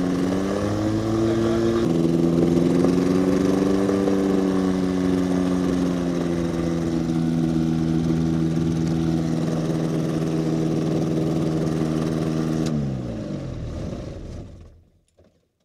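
Rotax 582 two-stroke twin engine of a Spectrum Beaver RX 550 ultralight running steadily at low power. About thirteen seconds in it is shut off and its pitch falls as the engine and propeller spin down to a stop.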